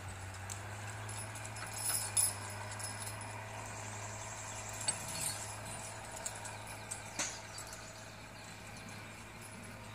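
Light metallic jingling and a few sharp clinks from the trace chains and steel disc harrow of a six-horse team pulling across the field, over a steady low hum.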